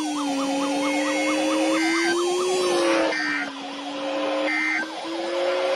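Emergency Alert System end-of-message data bursts on NOAA Weather Radio: short, harsh digital screeches repeated about every 1.3 seconds, which mark the close of the weekly test broadcast. Under them run a steady wavering tone and a siren-like tone rising and falling about four times a second.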